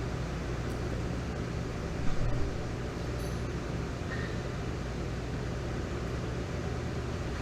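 Steady low machine hum, with a single short knock about two seconds in.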